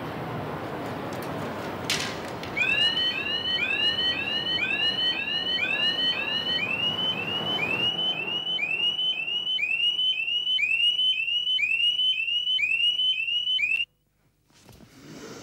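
Digital alarm clock going off: electronic chirping beeps, about two a second, over a rushing noise at first. The beeping stops suddenly near the end as a hand switches the alarm off.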